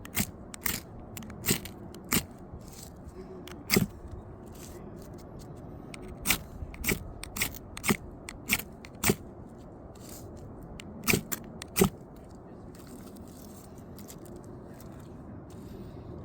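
Ferro rod struck with a scraper over and over in short, sharp scrapes at irregular intervals, some in quick pairs, while trying to get damp tinder to catch.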